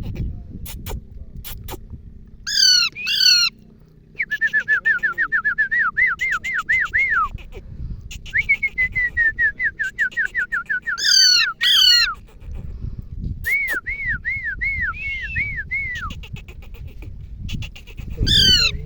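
A bird calling and singing: loud, sharp paired notes that sweep downward, heard three times, alternating with long runs of quick repeated whistled notes.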